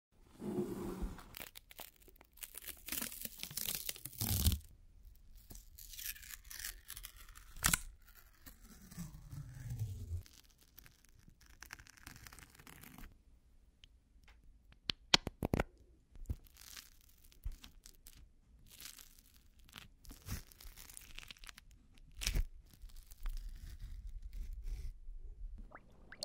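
Close-miked crunching, scraping and tearing as pressed powder cosmetics are crushed and broken apart with a clear tool. The sounds come as a string of separate strokes and sharp clicks with short quiet gaps between them.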